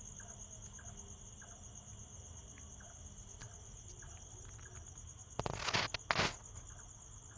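Crickets chirring steadily in a high, fast-pulsing trill, with two brief loud bursts of noise a little over five and six seconds in.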